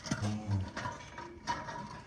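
A cow gives a short, low moo near the start, among scattered clanks and rattles.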